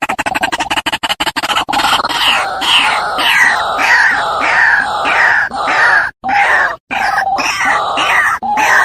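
White-breasted waterhen (ruak-ruak) calling: a fast run of clucking pulses gives way, under two seconds in, to loud harsh repeated calls, about two a second with falling notes. The calls break off abruptly twice for a moment after about six seconds.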